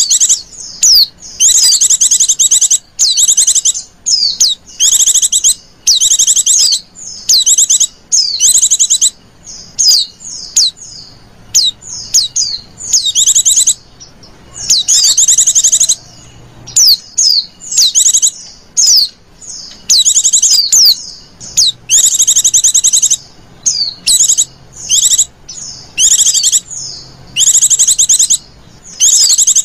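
White-eye (pleci) calls: loud, rapid high trills repeated in short bursts about once a second with brief gaps between them. This is a lure recording played to draw wild white-eyes in.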